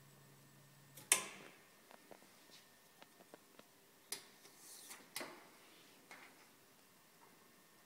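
Sharp mechanical clicks and clacks as gloved hands handle the roller assembly of a laboratory gravure printing machine. A loud click comes about a second in, and a low hum cuts off with it; a few light ticks follow, then two more clacks around four and five seconds with a brief rustle between them.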